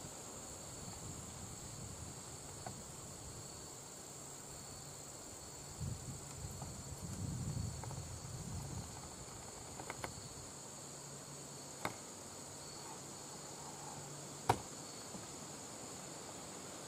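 Crickets chirring in a steady, high, continuous chorus. Some low rustling comes about the middle, and a few sharp clicks come in the second half, the loudest near the end.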